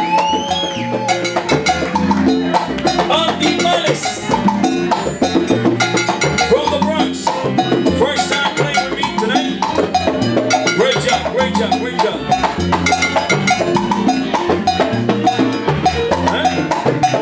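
Live salsa band playing a steady groove, with drums and percussion carrying the rhythm under bass and other instruments.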